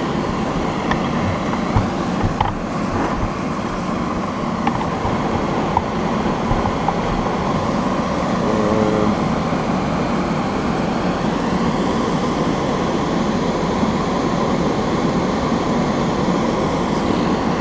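Large exhaust fan mounted in a plastic box, running steadily, with a few faint ticks in the first five seconds.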